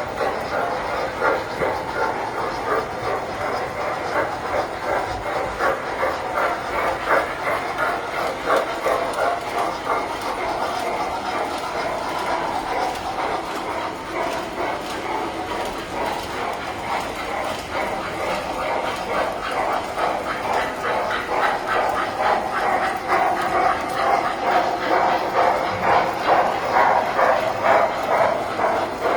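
Tinplate toy trains running on track: a steady metallic clatter of rapid clicks from the wheels rolling over the rail joints.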